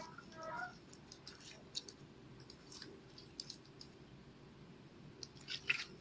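Clear slime being worked by hand, giving faint sticky clicks and small pops, denser and louder near the end.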